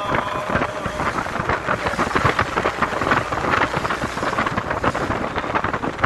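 Wind buffeting the microphone over the steady noise of a moving vehicle, recorded from its open cargo bed.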